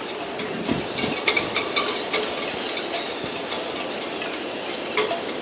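Storm wind rushing with a steady hiss, with scattered sharp clicks and knocks about a second in and again near the end.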